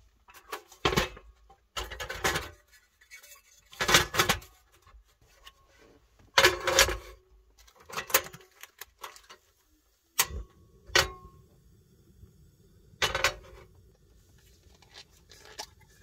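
Cooking gear handled on a carpeted car boot floor: a frying pan, portable electric hob and plastic food trays set down and knocked in a string of sharp clatters. About eleven seconds in the hob gives a short beep, and a low steady hum then runs under the handling.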